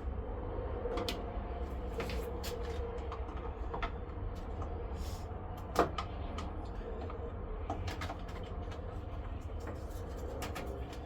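Scattered clicks and rattles of car body parts being handled during a teardown, with one louder knock about six seconds in, over a steady low hum.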